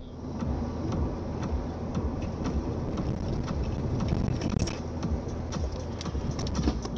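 Road noise inside a moving car picked up by a dashcam: a steady low rumble of engine and tyres, with scattered light clicks throughout.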